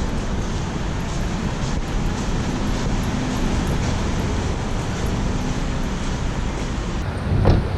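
Steady rumble of a car and road traffic, with a short knock near the end.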